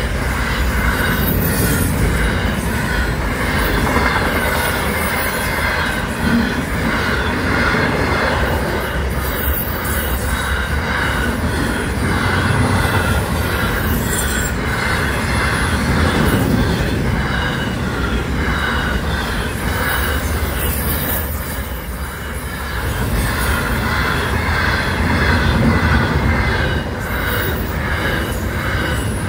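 Aurizon freight train of double-stacked container wagons rolling steadily past at speed, with a continuous steady noise of wheels running on the rails.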